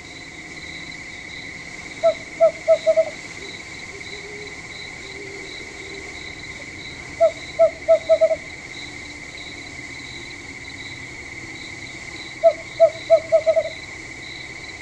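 A night bird calling in three bursts of five or six short, evenly pitched notes, the bursts about five seconds apart, over a steady high-pitched drone of crickets or other night insects.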